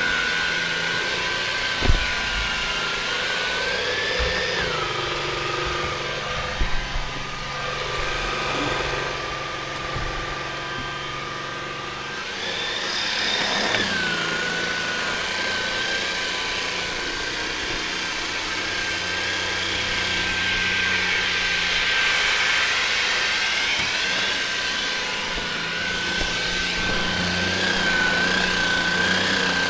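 Levoit vacuum cleaner running, its motor giving a steady whine that shifts in pitch a few times, with a knock about two seconds in.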